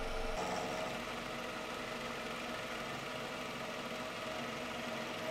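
Milling machine running with its end mill cutting a metal part held in the vise: a steady mechanical hum, whose tone changes abruptly about half a second in.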